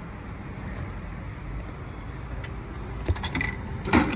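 Steady low background rumble, with a few light clicks about three seconds in and a sharper knock near the end.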